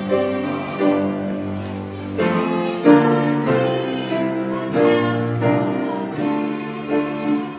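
Music led by piano, full chords changing every half second to a second.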